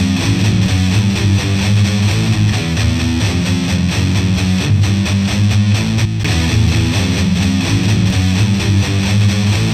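Heavy metal music: a low electric-guitar riff in short repeated notes over drums, played on a Maschine with its built-in drum kits and the Tube Apocalypse expansion's sounds.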